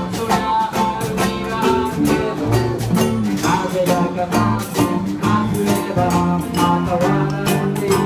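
Small acoustic band playing live: ukuleles and guitar strummed over upright double bass and hand percussion, with a steady beat.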